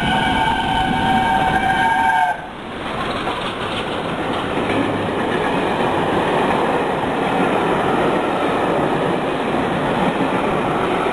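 A steam locomotive's whistle sounds one steady, multi-note blast that cuts off suddenly about two seconds in. After that comes the steady running noise of the train passing close by.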